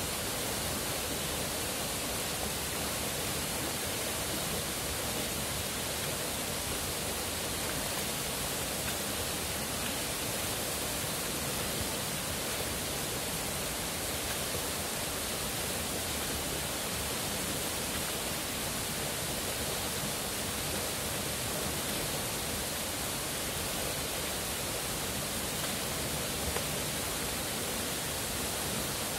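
Stream water rushing down a rocky cascade and over a small weir into a pool: a steady, even rush of white water.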